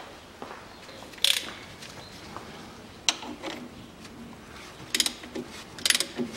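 Ratchet wrench clicking as it turns the centre bolt of a puller pressing the crankshaft pulley off. A few single clicks at first, then quick runs of ratcheting strokes from about five seconds in.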